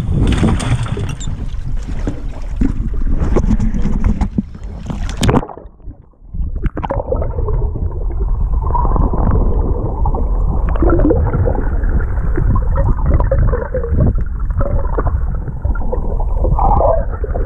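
Wind and sea noise buffeting the microphone on an open boat, then about five and a half seconds in the sound dips and turns muffled: water gurgling and rumbling as heard by a microphone underwater, with all the high sound cut away.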